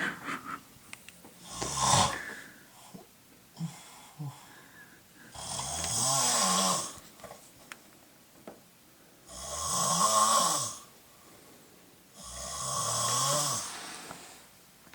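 A sleeping man snoring loudly: one short snore, then three long rattling snores about four seconds apart, quiet breathing in between.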